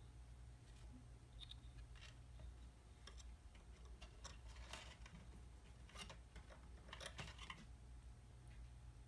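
Faint, scattered scratches and clicks of kittens' claws on a bark-covered log and a wooden chair, with a quick cluster about seven seconds in, over a low steady hum.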